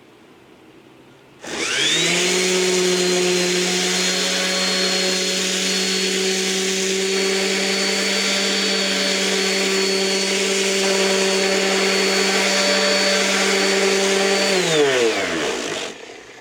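Small electric finishing sander with 80-grit paper sanding wooden fan blades: it is switched on and spins up about a second and a half in, runs at a steady pitch, then is switched off and winds down near the end.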